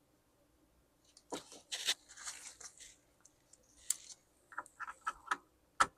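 Irregular clicks, scrapes and rustles of laptop parts being handled and pried at, starting after about a second of quiet, with a sharper click near the end.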